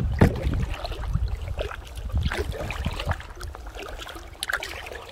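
Kayak paddling: paddle blades dipping and splashing, with water trickling and dripping off them in irregular small splashes. A low wind rumble on the microphone lies under it, and the whole thing grows quieter toward the end.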